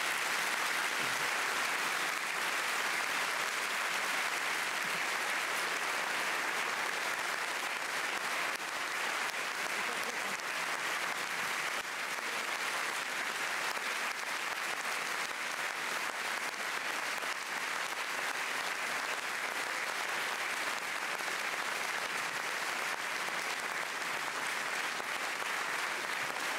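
Large audience in a hall applauding steadily and at length.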